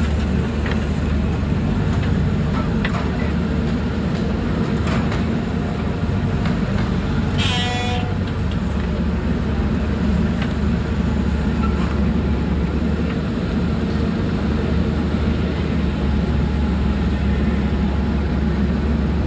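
JCB 3CX backhoe loader's diesel engine running steadily under load while it digs, with occasional faint knocks. A brief high-pitched pitched sound comes about eight seconds in.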